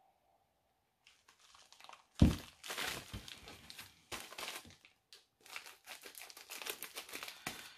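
Packaging crinkling and rustling as it is handled and opened, with one sharp knock about two seconds in.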